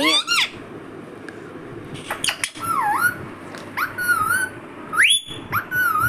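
Indian ringneck parakeet giving a string of short whistling, chattering calls from about two seconds in, some dipping and wavering in pitch, with a sharp rising whistle near the end.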